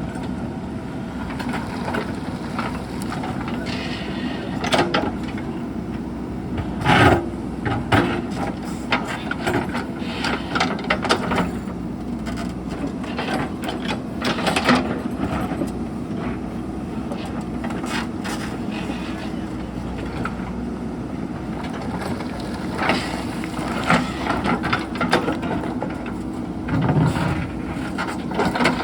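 JCB backhoe loader's diesel engine running steadily under load, with irregular clunks and scrapes as the bucket works among rocks and stones; the heaviest knocks come about seven, eight, fifteen and twenty-seven seconds in.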